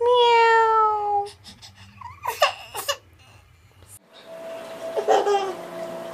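An infant's loud, drawn-out squeal, about a second long and falling slightly in pitch, followed by a few short vocal sounds.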